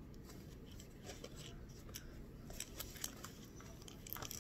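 Faint rustling and soft clicks of a picture book's pages being handled and turned, more frequent in the second half, over a low room hum.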